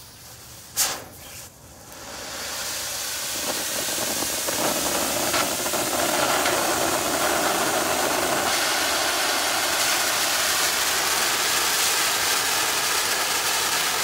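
TNT Mini Monster fountain firework spraying sparks: a sharp pop about a second in, then a steady hiss that builds over the next few seconds and holds loud, with a few faint pops early in the build.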